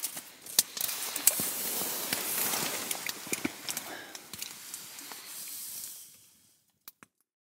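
Small wood stove burning, with a steady hiss and scattered crackles and clicks. It fades out about six seconds in.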